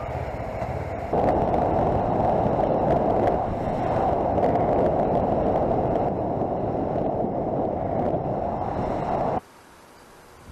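Wind rush and road noise picked up by a camera on a moving Kawasaki Versys 650 motorcycle, a steady rushing hiss with no clear engine note, louder after a cut about a second in. Near the end it drops suddenly to a faint roadside ambience.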